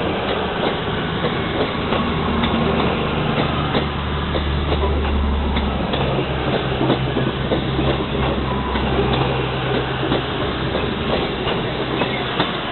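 CrossCountry Class 221 Super Voyager diesel-electric multiple unit passing slowly at close range. Its underfloor diesel engines drone steadily, changing note as successive cars go by, and the wheels click irregularly over rail joints and points.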